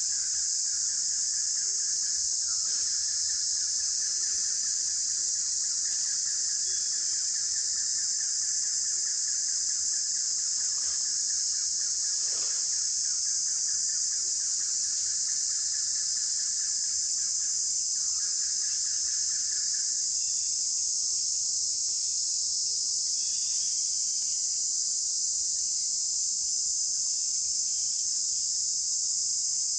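Insects droning in a steady, high-pitched chorus. A lower, pulsing trill runs under it and stops about two-thirds of the way through.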